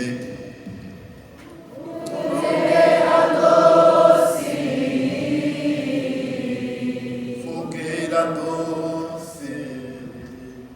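Many voices singing together in a slow chorus, sustained notes that swell about two seconds in and fade toward the end.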